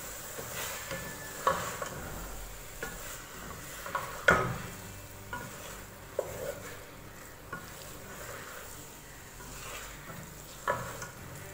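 Wooden spatula stirring split mash (urad) dal through frying masala in an aluminium pot, with a faint sizzle of oil underneath. The spatula scrapes and knocks against the pot now and then, the loudest knock about four seconds in.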